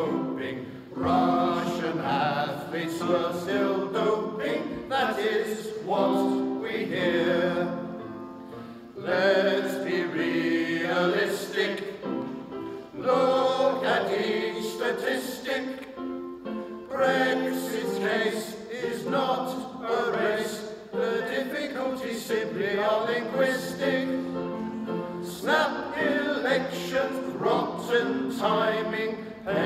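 Six-man male voice choir singing together in sung phrases, with short breaks between them.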